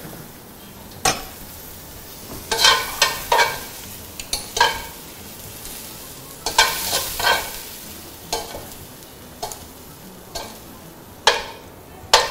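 Spatula scraping and knocking against a non-stick wok while pan-fried mushroom pieces are stirred and scooped out, in irregular scrapes with a few quick clusters of strokes.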